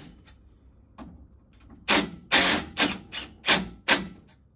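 Cordless drill/driver tightening bolts into a metal divan bed frame bracket in short bursts, about six loud pulses roughly two a second, starting about two seconds in.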